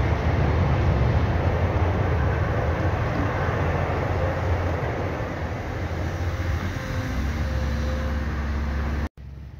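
Container freight train rolling across a rail bridge: a loud, steady rumble of the wagons that cuts off suddenly near the end.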